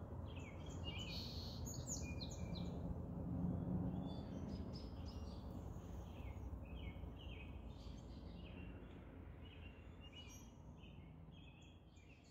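Small birds chirping and singing in many short, overlapping calls over a low, steady background rumble. The whole thing fades out gradually toward the end.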